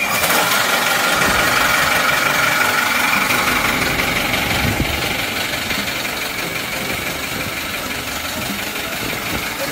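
Yanmar 140-horsepower marine diesel engines idling: a steady running sound with a thin high whine in it, loudest in the first few seconds.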